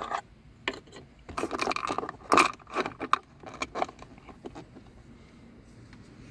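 Small plastic parts of a car's aux-input jack assembly clicking, rattling and scraping as they are handled and the little covers are fitted. The clicks come thickly for the first few seconds, then die away.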